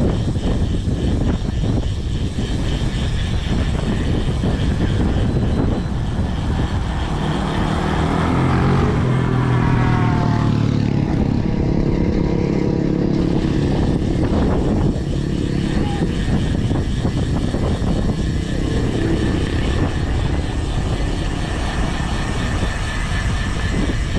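Steady wind buffeting on the microphone of a moving bicycle. An engine passes by between about seven and fourteen seconds in, and its pitch falls as it goes past.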